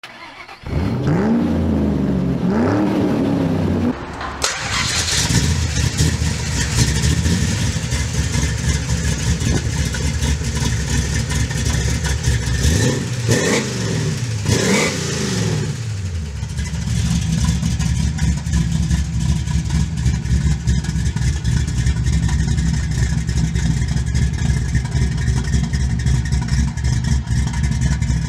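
Engine revving over the first few seconds, then a Dodge Dart's 6.8-litre, 413 cubic inch V8 running at idle, with a steady low rumble. It is revved up and let fall back twice, about halfway through.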